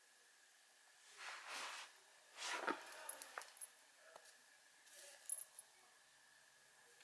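Soft rustling swishes, then a few light metallic clinks and jingles from a cat's leash clip and collar as the cat moves.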